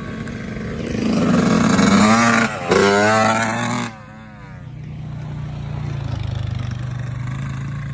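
Dirt bike engine revving as it pulls away, its pitch rising and falling, with a brief dropout in the middle. About four seconds in the sound cuts off suddenly to a quieter, steadier engine drone.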